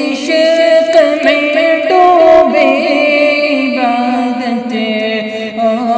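Male voice singing a naat melody without words, drawing out long held notes that waver and slide in pitch.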